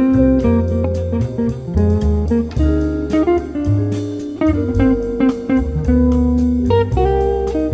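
Background music: plucked guitar over a steady bass line, in a bluesy, jazzy style.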